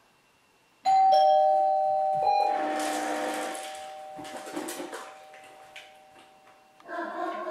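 Two-tone doorbell chime ringing once, ding then dong, about a second in, then fading out over the next few seconds. A short rushing noise sounds while it rings.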